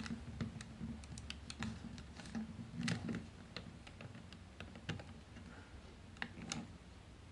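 Hard plastic parts of a Takara Masterpiece MP-36 Megatron transforming figure clicking and clacking irregularly, a few small clicks a second, as hands work at folding its pieces. The louder clatters come about three seconds in and near the end.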